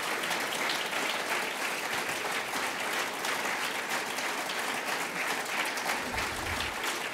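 Audience applause: many people clapping at a steady level.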